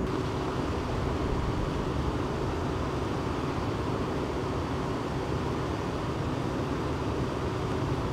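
Steady low rumble of vehicle engines and road traffic, an even noise with a low hum and no distinct events.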